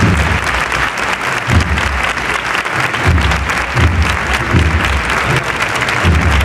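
Crowd applauding, a dense steady clapping, with low thumps recurring about every second and a half.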